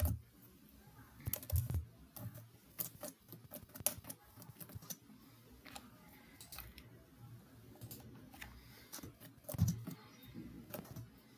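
Typing on a computer keyboard: faint, irregular keystroke clicks, with a couple of soft low thumps among them.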